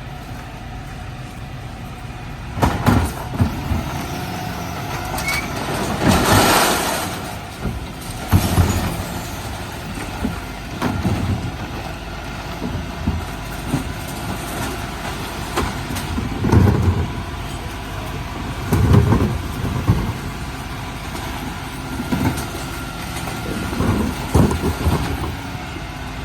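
Dennis Elite 6 refuse truck running while collecting recycling, its engine rumbling steadily under irregular clanks and thumps as bins are lifted and emptied. A loud rushing hiss lasts about a second, about six seconds in.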